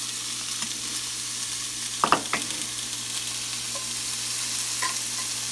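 Minced garlic frying in hot oil in a stainless steel pan, with a steady high sizzle as it is stirred. A metal spoon clicks sharply against the pan a few times about two seconds in, and once more near the end.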